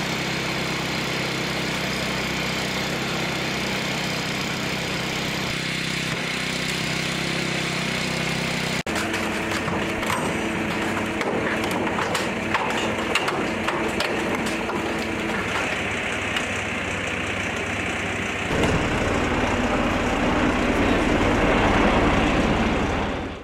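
Small engine of a portable hydraulic rescue-tool power unit running steadily, with scattered sharp cracks from a car body being cut by a hydraulic cutter. The sound gets louder and rougher about three-quarters of the way through.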